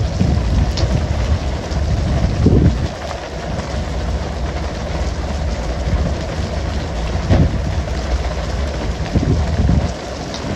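Steady hiss of water spray and sea wash over a deep engine rumble on a pole-and-line tuna boat, broken by a few short thumps, likely skipjack tuna landing on the deck.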